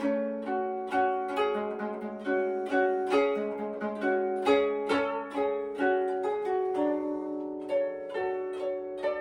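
Koto, the 13-stringed Japanese zither, played with finger picks: a melody of plucked notes, about two a second, each ringing and fading, with one longer held note a little after the middle.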